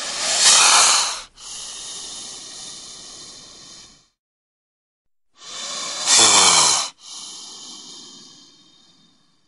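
Bull snake hissing twice. Each hiss opens with a loud, sharp burst about a second long, then runs on as a quieter hiss that fades away over two to three seconds; the second hiss starts about five and a half seconds in.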